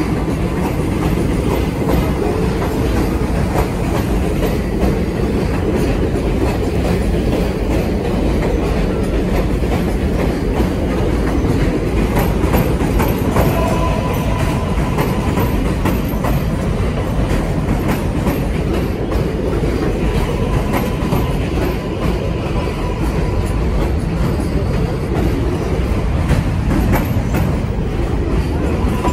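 New York City subway 7 train of R188 cars rolling past at close range: a steady loud rumble with wheels clattering over rail joints. A thin high tone comes and goes in the second half.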